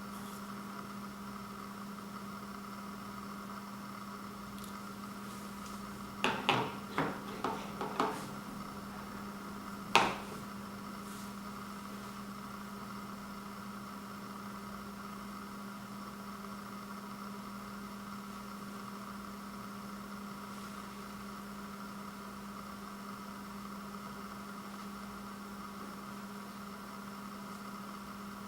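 Steady electrical hum, with a quick run of about five light clicks about six seconds in and one sharper click a couple of seconds later.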